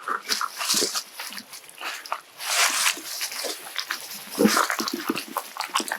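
Short animal calls mixed with clicks and rustling.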